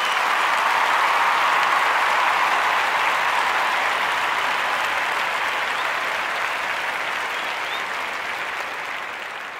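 An audience applauding, a steady mass of clapping that slowly fades out toward the end.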